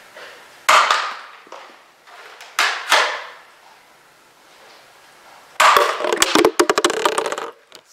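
Sharp pops of Nerf foam-dart shots and hits, one about a second in and two more close together around the three-second mark. Then an empty plastic water bottle is struck and knocked over, clattering and crinkling on the table for about two seconds.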